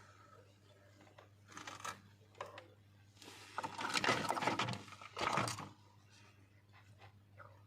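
Small tools and parts being handled on a repair bench: scraping and clicking, busiest in two louder stretches around the middle, over a steady low electrical hum.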